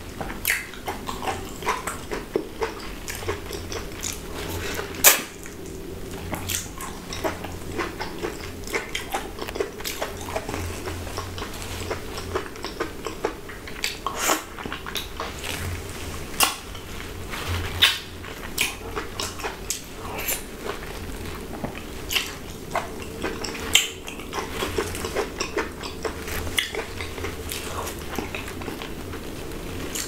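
Close-miked messy eating of a whole ripe mango: biting into the juicy flesh, sucking and chewing, with frequent irregular wet smacks and clicks and one louder smack about five seconds in.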